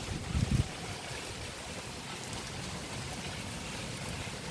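Heavy rain falling steadily, an even rushing hiss. A brief low rumble sounds in the first half second.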